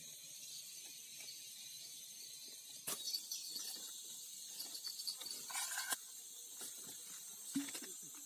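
Faint, steady high-pitched drone of forest insects, with a few sharp clicks and short rustles, about three seconds in and again near six seconds.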